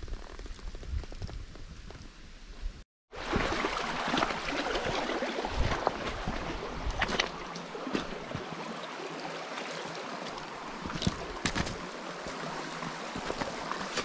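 A shallow creek flowing over stones, a steady rushing that starts after a brief dropout about three seconds in. Occasional clicking footsteps on gravel sound over it.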